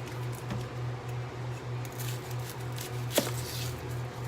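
Knife cutting an onion on a cutting board: a few soft, scattered knocks, with one sharper knock about three seconds in. Underneath is a steady low hum that pulses about three times a second.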